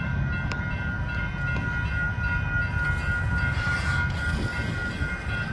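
Railroad grade-crossing warning bell ringing steadily over the low rumble of a train.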